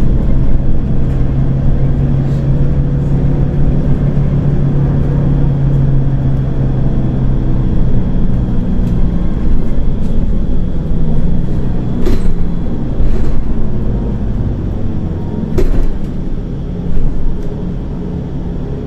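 A Volgabus-5270 city bus with a liquefied-gas (LNG) engine running along the road, heard from inside the cabin. The engine hum is strong for the first half, then eases off, with a few sharp clicks or knocks in the second half.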